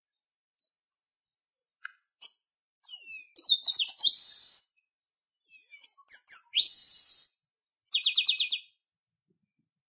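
Chestnut-capped blackbird (garibaldi) singing: a few faint chirps, then two song phrases of quick falling whistled notes, each ending in a harsh buzzy note, and a short rapid rattle near the end.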